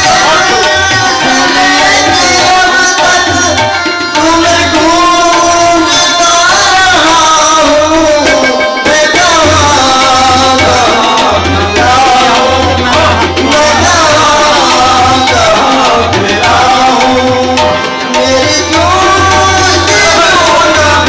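A man singing a Sufi devotional song in a wavering, sliding melody, accompanied by harmonium and tabla drum strokes.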